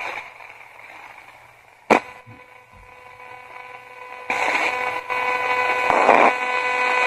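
Spirit box, a modified 20-125 radio sweeping through stations, giving out static hiss with a sharp click about two seconds in. The static grows louder and choppier from about four seconds.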